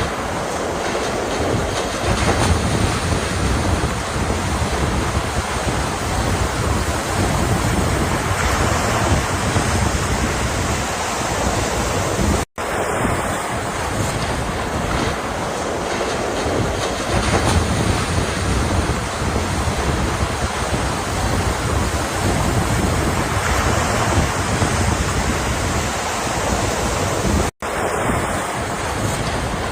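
Ocean surf washing steadily in a continuous wash of noise. The sound cuts out completely for an instant twice, about halfway through and near the end.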